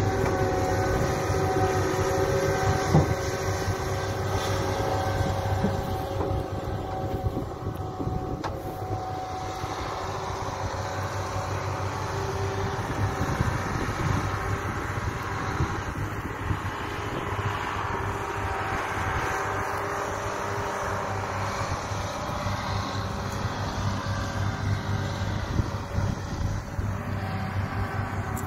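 Diesel engines of sugar beet harvesting machinery running steadily: a low rumble with a steady engine whine, easing a little for a few seconds about a third of the way in.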